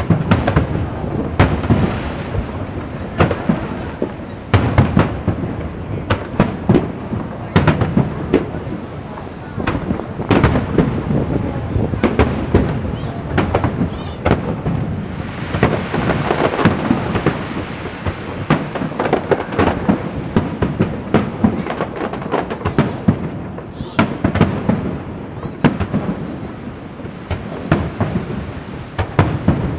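Fireworks display: aerial shells going off in quick succession, sharp bangs overlapping one another throughout, with a denser, hissing stretch about halfway through.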